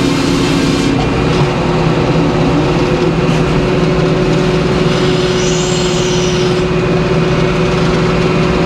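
Edmiston hydraulic circular sawmill running with a loud, steady mechanical drone as the carriage carries a white pine board past the large circular blade. The hum shifts pitch about a second in, and a short high hiss comes about halfway through.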